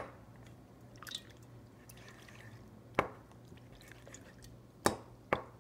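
Slime being squished and handled in a bowl of hot water, with a few short, sharp wet squelches and drips.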